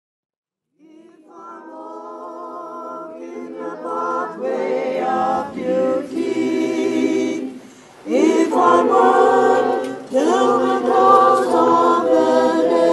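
A choir singing unaccompanied, fading in about a second in and growing louder, with short breaks between phrases.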